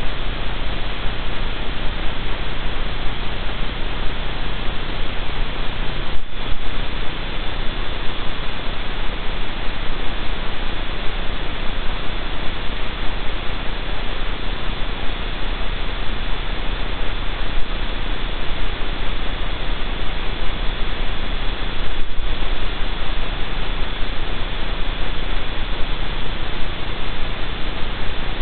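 Steady electronic hiss and static with a low mains hum from the den livestream camera's audio feed, with a steady thin whine riding on top. The feed drops out briefly about 6 and 22 seconds in.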